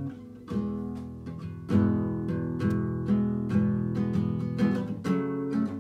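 Background music: acoustic guitar strumming chords in a steady rhythm, with the chord changing every second or so.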